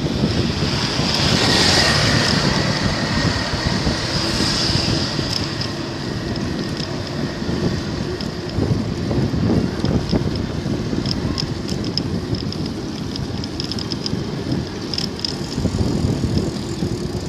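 Wind buffeting the microphone on a moving bicycle, with steady road and traffic noise, louder for the first few seconds.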